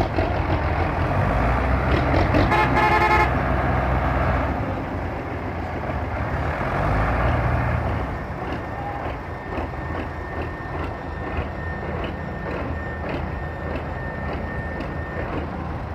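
Belarus tractor's diesel engine running hard under load, a deep steady rumble that eases off a little after about eight seconds. A horn sounds briefly at about two and a half seconds.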